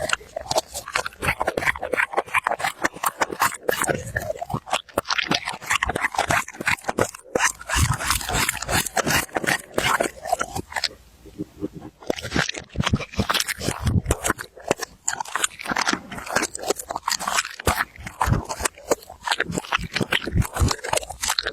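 Dog chewing and crunching on something hard, a dense, irregular run of short crunches with a brief pause about eleven seconds in.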